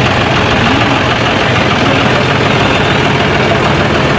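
Steady din of busy street traffic, with vehicle engines idling and running close by.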